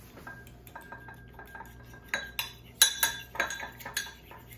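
A metal fork beating an egg in a ceramic dish, its tines clinking rapidly against the dish. Light taps at first, then louder and faster clinks from about two seconds in.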